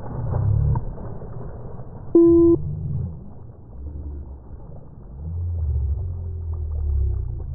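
Wind buffeting the microphone in low, uneven rumbles, with one short, loud beep about two seconds in.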